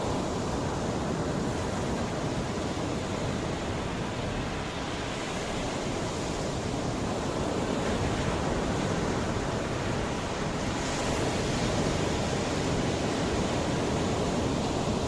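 Mediterranean sea waves breaking and washing on the shore in a steady, continuous rush that swells gently now and then.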